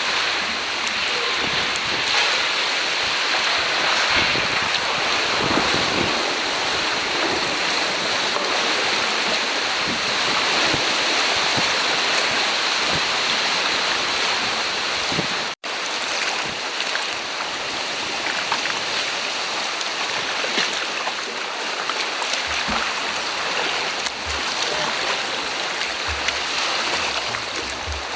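Choppy sea water splashing and rushing around a sea kayak, a steady noisy wash. It drops out for an instant about halfway through.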